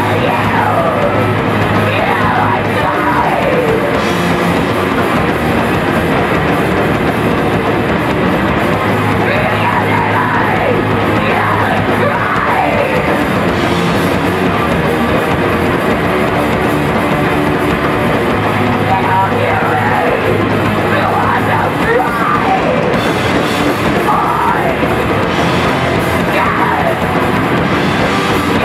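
Punk band playing live at full volume: distorted guitars, bass and drum kit, with yelled vocals and repeated falling guitar or vocal sweeps.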